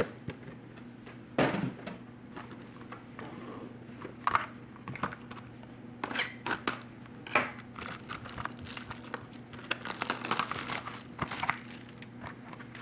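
Crinkly plastic packaging being torn off and crumpled: scattered crackles, with a dense stretch of crinkling about ten seconds in.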